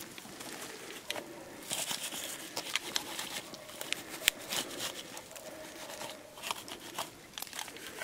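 Footsteps through snowy undergrowth: dry twigs and branches snapping and crackling in many sharp cracks, with brush scraping against clothing. With little snow on the ground, the branches crack loudly underfoot.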